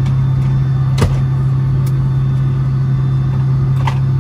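Boeing 757-200 cabin noise: the engines drone steadily and low, heard from inside the main cabin. A thump comes about a second in and a smaller one near the end.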